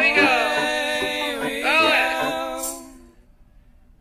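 Music with singing: held notes that bend up and down in pitch, dying away about three seconds in.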